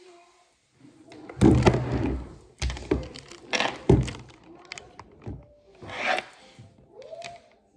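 Phone or camera being handled close to the microphone: a run of thumps and rubbing scrapes in about four bursts, the loudest around two and four seconds in.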